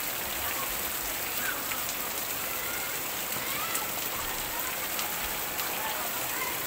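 Steady spatter and splash of a small waterfall's water falling onto a bather's head and the rocks below, with faint voices in the background.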